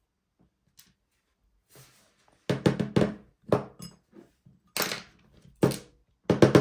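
A few faint clicks, then an irregular run of sharp knocks, each ringing briefly, from about two and a half seconds in: knocking on a lock cylinder to work stuck pins loose from their chamber.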